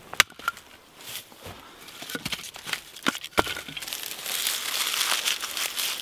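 A sharp axe strike splitting a log about a quarter-second in, then a few scattered knocks. In the second half, dry crinkling and tearing of birch bark being peeled by hand off a birch trunk, growing denser toward the end.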